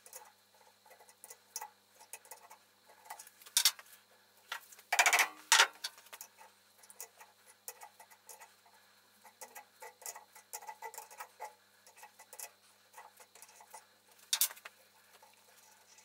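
Sped-up clicking, ticking and scraping of a small adjustable spanner working a screw extractor that turns a broken bolt out of an aluminium housing, with a few louder metal clanks, the longest about a third of the way in.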